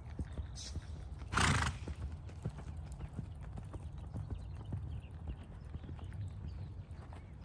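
A sorrel Quarter Horse gelding's hooves thudding on deep arena sand at a lope. One loud half-second rush of noise comes about a second and a half in.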